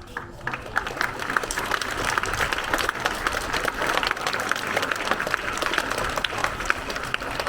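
An audience of schoolchildren applauding: many hands clapping irregularly. It builds up over the first second or two and then holds steady.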